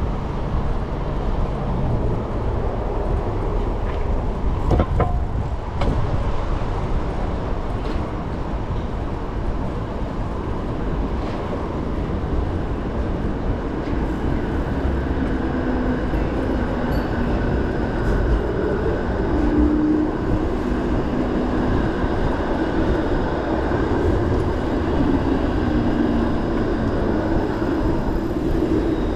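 Wind rush and rolling noise from a moving bicycle ride, a steady low rumble throughout. From about halfway, a faint steady drone with a few held tones joins in.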